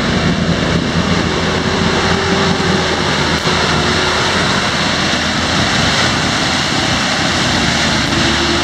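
Nissan Terrano's TD27T turbodiesel engine running under load as the 4x4 drives through a flooded, muddy track, with a steady wash of water and mud splashing against the body and tyres.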